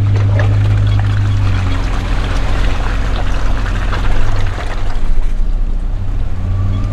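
A 4x4 truck driving a rough trail, heard from inside the cabin: a steady low engine drone, with a crackling, rushing noise from the tyres on the trail surface that swells through the middle and eases off near the end.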